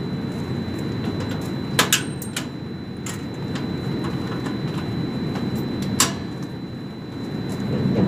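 Sharp metallic knocks and clanks from hands and tools on sheet-metal ductwork, two close together about two seconds in and a louder one near six seconds, over a steady low rumble.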